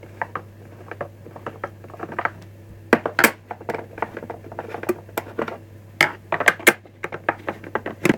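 Screwdriver undoing the screws in the plastic underside of a Henry vacuum's motor unit: irregular clicks and scrapes, in clusters, with a faint steady low hum underneath.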